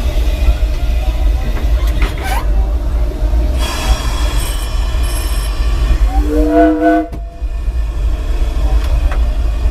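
Steam locomotive Ernest S. Marsh running with a steady low rumble, heard from its cab. About six seconds in, its steam whistle gives one short blast of about a second: the pitch rises briefly at the start, then holds, then cuts off suddenly.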